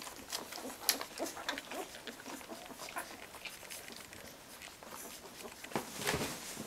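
A litter of two-week-old puppies squeaking faintly and shuffling against one another as they root for the teats to nurse, with a louder stretch about six seconds in.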